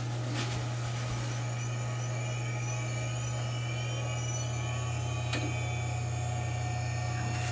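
Power Macintosh 7500 running just after power-on: a steady low hum from its fan and power supply, with faint high whines slowly rising in pitch. Two sharp clicks come near the end.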